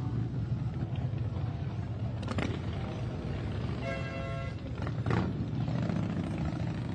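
Motorcycle engines rumbling steadily along a busy rally street, with two short louder surges about two and a half and five seconds in. A brief high tone, like a horn, sounds about four seconds in.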